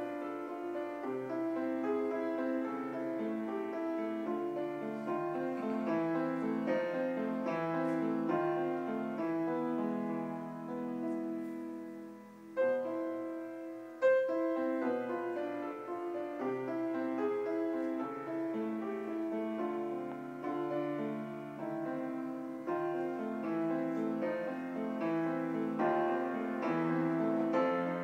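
Piano playing a continuous run of notes. There is a short break about halfway through, then the piece resumes with a loud chord.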